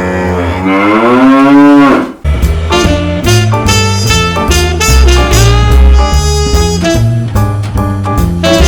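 A cow mooing: one long call rising in pitch, ending about two seconds in. Then upbeat jazz music starts.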